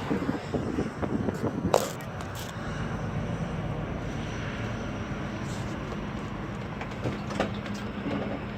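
A few sharp metallic clanks and knocks, the loudest about two seconds in, then a steady low hum.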